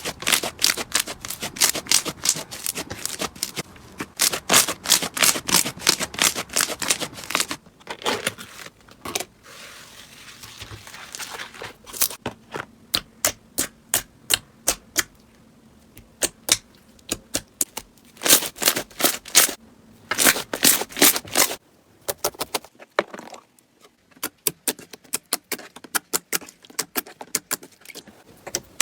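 Slime being squeezed and poked, giving quick runs of sharp popping clicks as trapped air bursts, with a few quieter stretches between runs.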